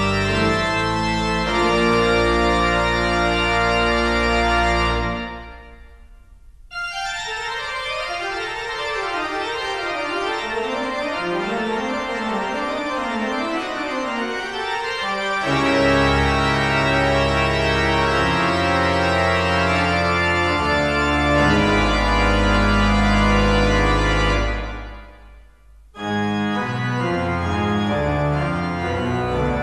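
Background music carried by sustained chords, with a run of quick notes stepping up and down from about 7 to 15 seconds in. The music dips nearly to silence twice, about 5 seconds in and again about 25 seconds in, where one passage gives way to the next.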